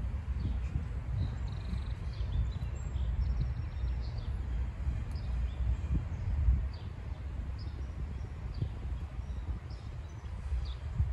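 Songbirds chirping in short, repeated notes over an uneven low rumble.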